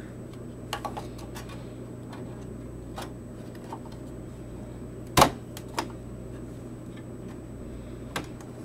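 Scattered clicks and knocks of a GeForce FX 5200 graphics card being pushed into its AGP slot inside a PC case, with plastic and metal parts tapping. The loudest, a sharp click about five seconds in, is the card snapping into its slot.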